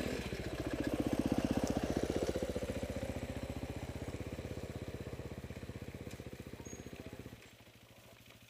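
Motorcycle engine running with an even, rapid pulsing beat. It swells about a second in, slowly fades, then drops away sharply near the end, leaving a much fainter pulsing.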